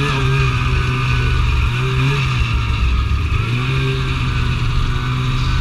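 Polaris snowmobile engine running as the sled is ridden, its pitch rising and falling several times as the throttle changes.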